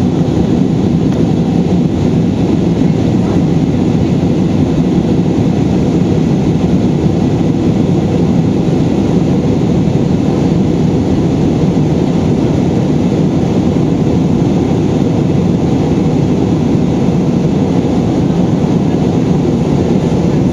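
Steady, loud cabin drone of an Airbus A320 in flight: engine and airflow noise heard from inside the passenger cabin, a deep even roar with no change in pitch or level.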